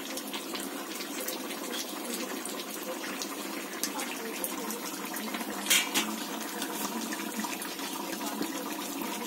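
Chicken and chickpea curry simmering in a kadai on a gas stove, a steady hiss and bubble, with a brief clatter about six seconds in.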